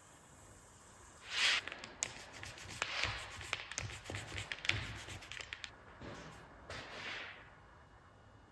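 Hands handling workshop materials: a loud swish about a second and a half in, then irregular rustling swishes and sharp clicks and taps that die down near the end.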